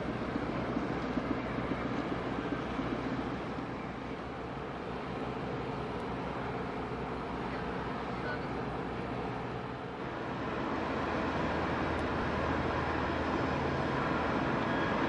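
A car ferry's diesel engines running, heard as a steady low rumble with a faint hum, growing louder about ten seconds in.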